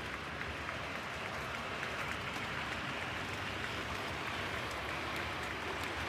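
OO gauge model diesel locomotive running on the layout track: a steady rolling rush from the wheels and motor with faint scattered clicks.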